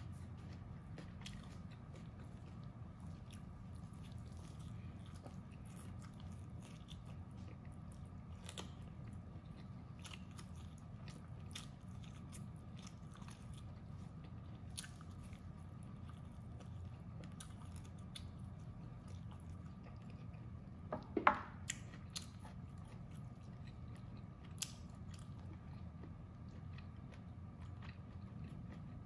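Close-up eating sounds of roast duck being bitten and chewed, with scattered small crunches and clicks over a steady low hum. A louder, sharper crack comes about two-thirds of the way through.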